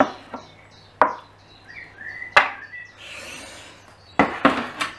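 Wooden spatula knocking and scraping against a baking tray as roasted vegetables are lifted off it: single sharp knocks at the start, about a second in and about two and a half seconds in, a soft scrape, then three quick knocks near the end.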